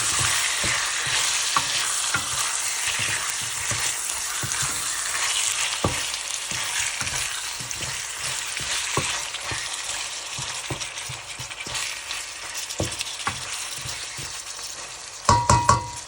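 Chicken legs with ginger and onion sizzling in a frying pan while a spatula stirs them, with frequent light scrapes and knocks against the pan. The sizzle slowly dies down, and near the end there are a few loud clanks.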